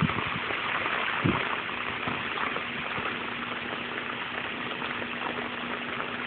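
Heavy hurricane rain pouring steadily onto a flooded street, an even hiss of falling water, with a faint steady low hum underneath.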